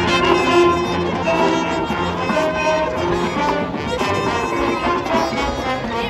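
High school marching band playing, led by its brass section: full held chords that move to a new chord every second or so.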